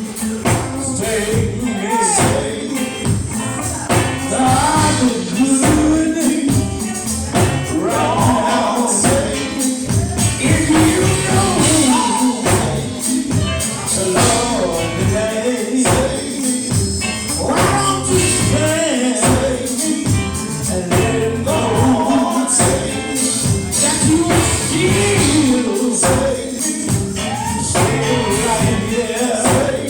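Live gospel song: singing over a band, with percussion keeping a steady beat.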